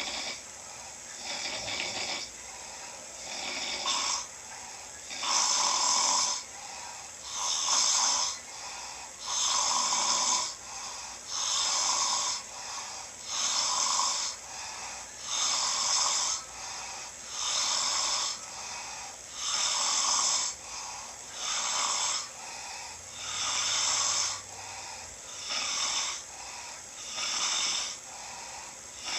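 A sleeping person snoring loudly and regularly, about one snore every two seconds, each a rasping breath of about a second.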